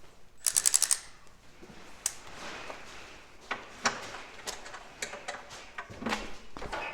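Ratchet wrench clicking in a quick run about half a second in, followed by scattered light metal clicks and knocks as the bolts holding a go-kart's wing are worked loose.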